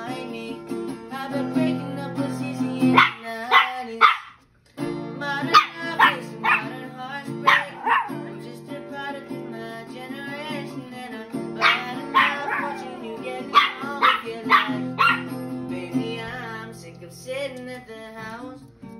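Chihuahua crying along to an acoustic guitar song: short high-pitched whines and yelps in runs of three or four at a time, over steady strummed guitar.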